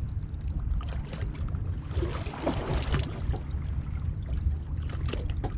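Steady low rumble of water and wind around a small fishing boat, with a brief louder rush of noise about two seconds in.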